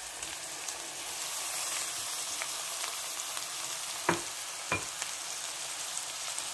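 Freshly added sliced mushrooms sizzling in hot oil in a steel pan as they are stirred with a metal spatula. Twice, a little past the middle, the spatula knocks sharply against the pan.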